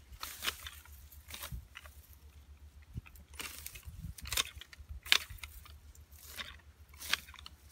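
Hand sickle slicing through weeds and grass at ground level: a string of short, crisp cutting swishes at irregular intervals, with stems and leaves rustling.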